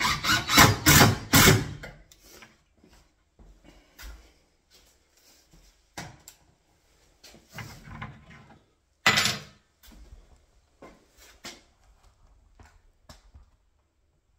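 Makita 18V cordless driver running for about two seconds, driving a long screw through the cabinet side into the timber block. After that come scattered knocks and bumps of the chipboard units and door being handled, with one sharp knock about nine seconds in.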